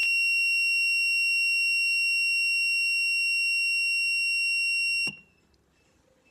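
A wireless remote-controlled buzzer receiver gives one steady, high-pitched beep, then cuts off abruptly with a click about five seconds in. In momentary mode it sounds only while the remote's button is held down.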